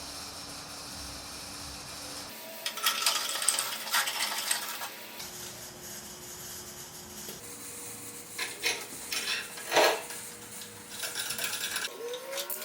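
Metal parts of a homemade steel vise clicking and clinking as they are handled and worked, in short bursts of knocks and rattles. The background changes abruptly several times, as between edited shots.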